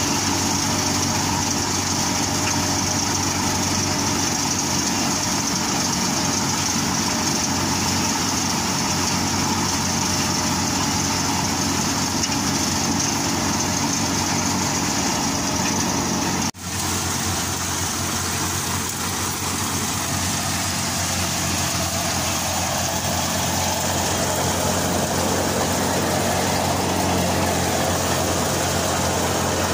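Tractor-powered threshing machine running steadily while mung bean plants are fed through it, the tractor engine and thresher together making a constant drone. The sound drops out for an instant about sixteen seconds in, then carries on the same.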